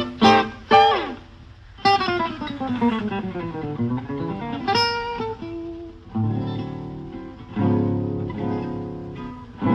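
Guitar music: a few quick plucked notes, then a gliding phrase that falls and rises in pitch, then held strummed chords.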